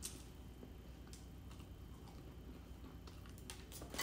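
A few faint light clicks and crackles from food being handled at the table, a scone broken apart by hand, over quiet room tone.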